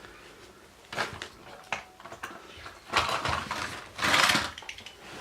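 Toy cars being handled and rummaged out of a box: a few small clicks and knocks, then two short rustling, clattering bursts.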